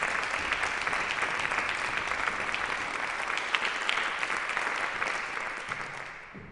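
Concert audience applauding, the dense clapping fading away near the end.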